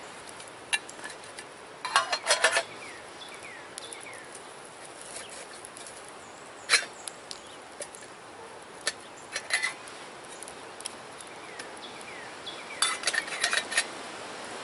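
Metal canteen cup and its lid clinking and clattering in four short bursts as the cup is handled and set on a campfire, over a steady background hiss.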